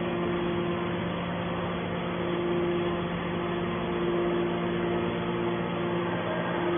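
Scrap metal baler's hydraulic power unit running with a steady, even hum.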